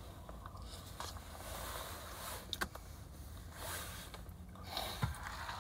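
Eating mac and cheese from a cup with a fork: chewing and soft handling noises, with two short sharp clicks, over a low steady hum.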